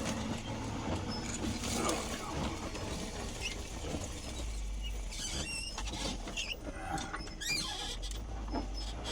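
Short high squeaks over a low rumble, from a vehicle's engine as it works through deep, wet snow.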